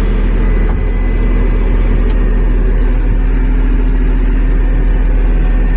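John Deere 333G skid steer's diesel engine idling steadily just after starting.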